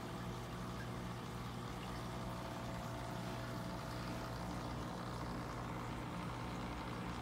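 Steady hum of aquarium pumps and filtration with running water, unchanging throughout.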